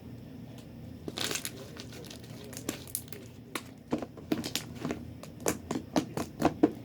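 Sticky fluffy slime squeezed and pressed by hand, crackling and popping: a short crinkly burst about a second in, then sharp pops that come faster and louder over the last few seconds.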